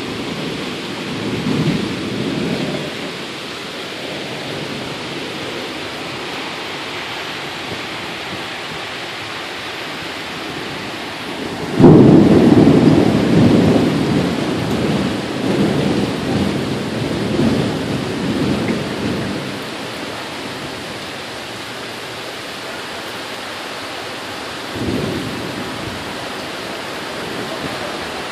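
Tropical storm: a steady rush of rain and wind, with a sudden loud, low rumble about twelve seconds in that rolls on unevenly for several seconds before dying away. There are weaker rumbles near the start and near the end.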